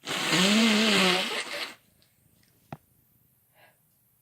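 A person sneezing: one long, loud, breathy sneeze with a voiced 'ahh', just under two seconds, followed a second later by a single faint click.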